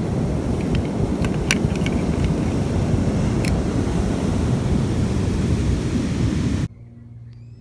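Wind rushing over the microphone together with surf noise, with a few faint clicks in the first half. It cuts off suddenly near the end to a much quieter background.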